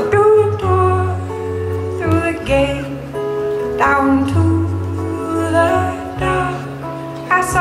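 Live acoustic folk band playing, with guitar strumming over sustained upright bass notes and a woman singing long held notes without clear words.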